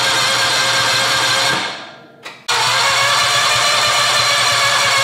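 Predator 670cc V-twin engine being started with its electric starter: a steady mechanical sound that fades away about one and a half seconds in, then comes back abruptly a second later.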